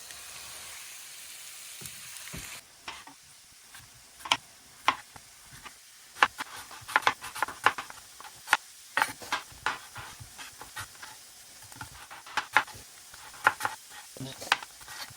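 Chicken cutlets sizzling in hot oil in a pan, a steady hiss that drops in level about two and a half seconds in. After that come many sharp, irregular knocks and clicks of kitchen utensils, several a second.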